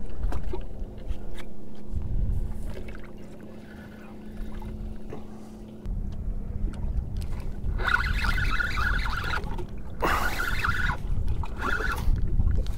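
Wind rumbling on the microphone and water lapping at the hull of a drifting fishing boat, with a steady low hum that stops about six seconds in. Near the end come two short spells of a higher rattle as the spinning reel is handled.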